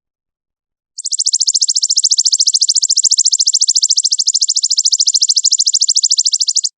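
A songbird's rapid, high trill of evenly spaced notes, about a dozen a second at a steady pitch. It starts about a second in and cuts off just before the end, a stretch of bird song of the kind played as a song-tutor (masteran) recording to competition birds.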